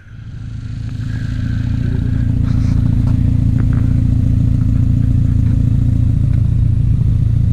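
ATV engine running at a steady speed, a deep pulsing drone that swells over the first second or two and then holds level, with a few faint clatters about three seconds in.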